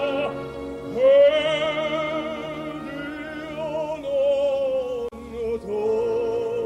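An operatic tenor sings held high notes with wide vibrato over an orchestra. A new note swoops in about a second in, and the line steps down to a lower held note near the end.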